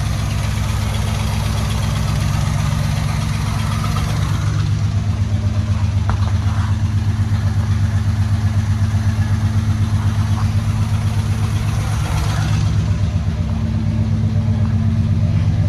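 Box Chevy's engine idling just after a cold start, running steadily. Some higher-pitched noise drops away about four seconds in, leaving an even, rhythmically pulsing idle.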